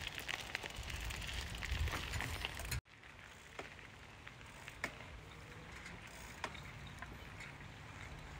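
Gravel crackling and crunching under a small bike rolling along a path, over a low rumble. It stops abruptly about three seconds in, giving way to a quieter rolling hiss on asphalt with scattered clicks.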